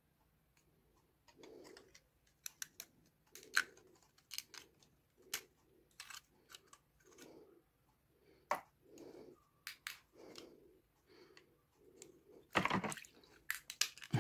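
Light plastic clicks and rattles as the louvre insert of a car air vent diffuser is handled and pressed apart, with a burst of louder clicking about two thirds of the way through. Soft low hoots repeat about once a second behind the clicks.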